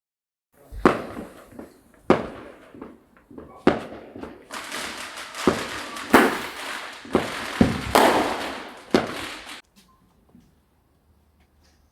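Fireworks going off: a string of sharp bangs, with dense crackling between them for the second half, stopping suddenly about two seconds before the end.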